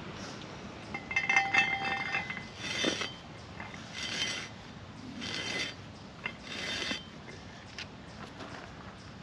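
Metal ground-screw mailbox anchor being twisted into the ground: a ringing metallic clinking about a second in, then four rasping scrapes, a little over a second apart, as the screw grinds through the soil with each turn.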